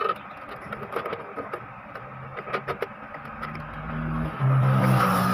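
Light plastic clicks and taps as a part inside an Epson L3110 printer is pressed and snapped into its lock. About three and a half seconds in, a low drone rises and then holds steady and loud, drowning out the clicks.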